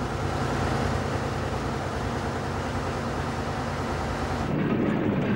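Steady tank engine and track rumble. About four and a half seconds in, the high hiss drops away and a rougher, deeper rumble takes over.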